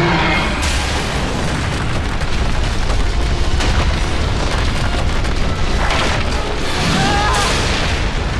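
Loud, sustained rumbling blast like an explosion sound effect, with the rumble heavy in the low end, standing in for a sneeze blown up to disaster size.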